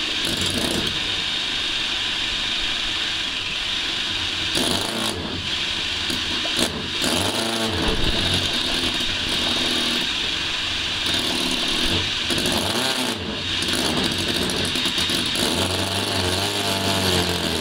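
Small hand-built multi-cylinder model engine running steadily, its pitch shifting up and down several times.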